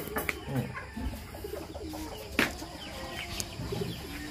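Domestic fowl calling: short, low clucks and coos scattered through, with one sharp click about two and a half seconds in.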